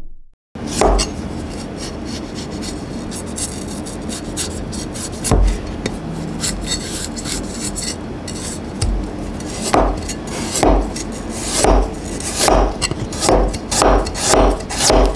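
Cleaver scraping the skin off a knob of fresh ginger, a steady rasping, then slicing the ginger on a cutting board: knife strikes on the board about once a second, quickening to about two a second near the end.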